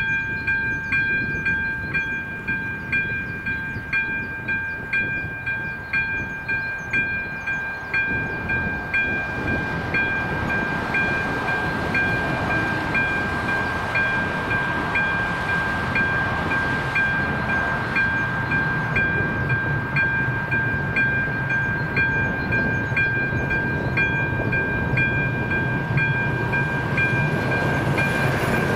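Czech level-crossing electronic warning bell (AŽD 97) starting up and dinging steadily and evenly, signalling an approaching train. From about the middle on, the rumble of the approaching train grows louder beneath it.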